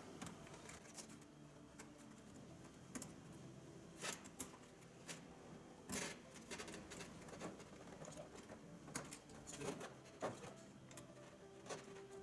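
Faint, scattered plastic clicks and rattles of electrical connectors being unplugged from the back of a BMW E38 door panel, a few clicks every second or two.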